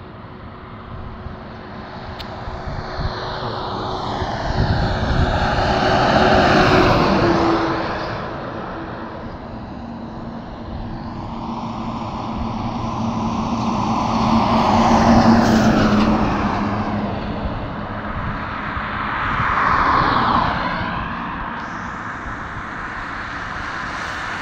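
Heavy trucks and other vehicles passing close on a highway. Three loud pass-bys come about 6 s, 15 s and 20 s in, each a rising rush of tyre and engine noise. The engine hum drops in pitch as each vehicle goes past.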